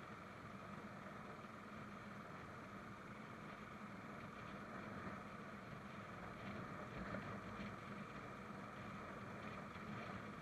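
Single-cylinder Royal Enfield motorcycle cruising steadily along a lane, its engine note and road noise heard low through a helmet-mounted camera.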